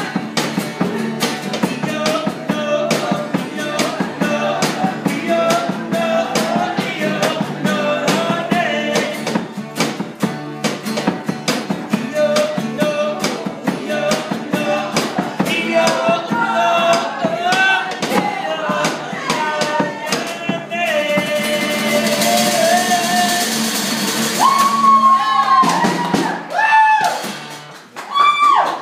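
Rock and roll music: singing over guitar with a steady drum beat. Near the end there is a burst of high, cymbal-like hiss, then a few loud gliding yells as the song stops.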